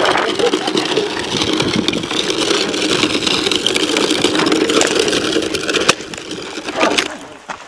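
A small motorized red ride-on toy vehicle running steadily with a constant drone. It drops away near the end, with a couple of sharp clicks shortly before it fades.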